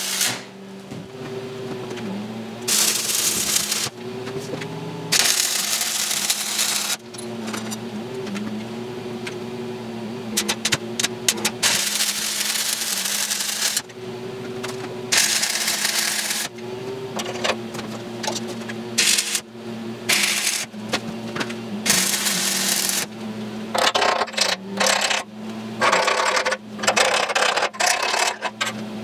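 Stick welding on a steel frame: the arc crackles and sizzles in bursts of one to two seconds, several times, with sharp metallic clicks and clanks between the welds and a steady hum underneath.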